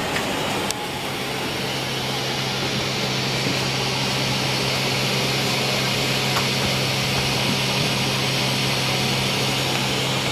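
Airbus A319 cabin ventilation and air-conditioning running steadily: an even hiss of air with a constant low hum under it.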